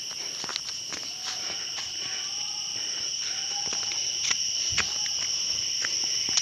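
A steady, high-pitched insect chorus, with scattered clicks and crunches of footsteps on dry leaf litter.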